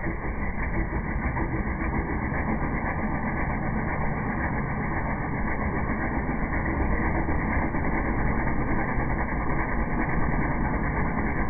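Honda Civic LX's 1.7-litre four-cylinder engine running steadily, with the odd noise that the owner puts down to a worn-out timing belt tensioner.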